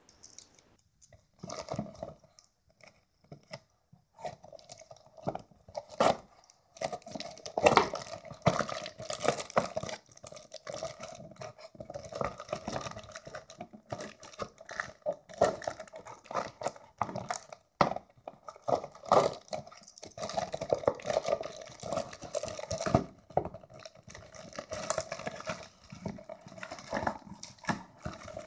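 Packing tape on a cardboard box being cut with a Swiss Army knife and the box pulled open: irregular scraping, tearing and crinkling of tape and cardboard, with sharp clicks and knocks between.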